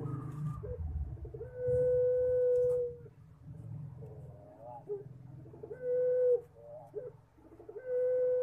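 Puter pelung dove cooing: three drawn-out coos, each held level on one pitch, the last starting near the end. A few short, softer notes come between them. The strain is kept for this long coo, likened to a person crying.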